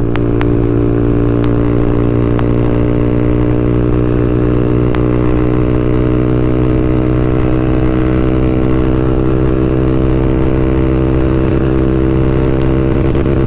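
TVS Apache RTR 200 4V's single-cylinder engine through an aftermarket full-system free-flow exhaust, held at a steady high-rev note against the Urban-mode rev limiter. The note is loud and holds one pitch throughout.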